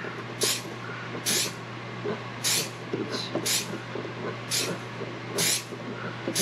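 Hand pump spray bottle of glue accelerator spritzing in short hisses, about one a second, seven in all, to speed the curing of thin glue soaked into the wood inlay. A steady low hum runs underneath.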